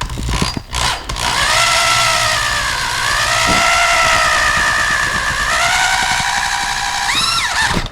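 Power drill boring a hole that is to be tapped for threads. The motor's pitch sags under load midway and recovers, then rises in a short whine before it stops near the end.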